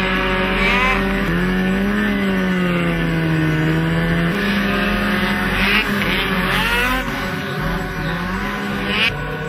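Several snowmobiles running past one after another, their engine pitch rising and falling as each one goes by.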